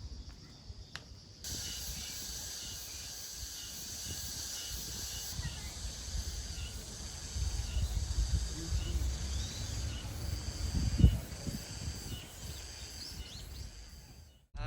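Outdoor insect chorus, a steady high trilling with a pulsing note, coming in about a second and a half in, over a low rumble. A single dull thump about eleven seconds in.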